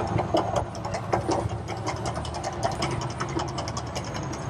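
The Mirage volcano show's gas fire jets burning: a steady low rumble with rapid, irregular crackling.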